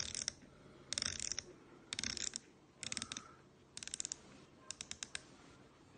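Akios Nitron F15 multiplier casting reel ratcheting as it is turned by hand: short runs of rapid clicks, about one run a second, six in all.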